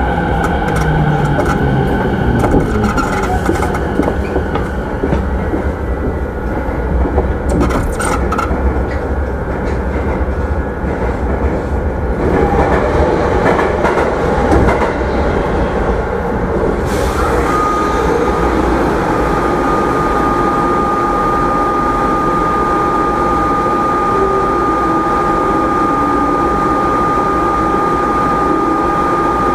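Running noise inside an E217-series commuter train's motor car (MoHa E216-2000, refurbished traction equipment), with wheel and rail noise throughout. Near the start the motor tones fall in steps, and in the middle there is a spell of louder, rougher rumble. A little past halfway a steady high whine sets in and holds.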